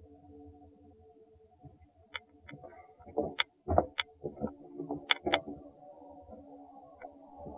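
Footsteps on the wooden planks of a boardwalk: a run of uneven knocks and thuds from about two seconds in to about five and a half seconds, over a faint steady hum.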